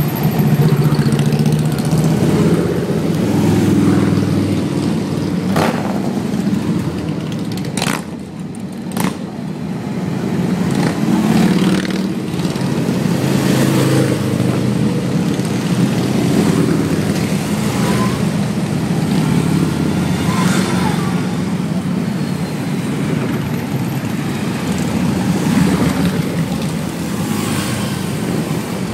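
A steady stream of cruiser and touring motorcycles rides past one after another, their engines rumbling and swelling as each bike goes by. There are a few short clicks near a quarter of the way in.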